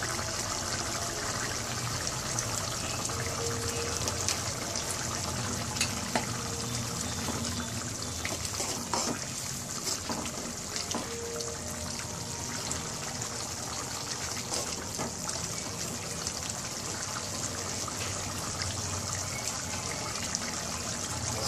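Chicken gizzard masala gravy simmering in a steel kadai, a steady bubbling sizzle as it cooks down until the oil separates, with a few clinks and scrapes of a steel spoon stirring it around the middle.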